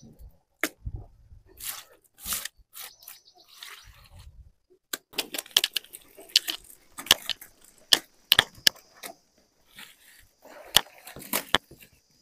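Young sheep eating a wet concentrate feed mix of maize, bran and cotton: irregular crunching and clicking as they chew and nose through it, sparse at first and busier from about halfway. A steady high insect buzz joins from about halfway.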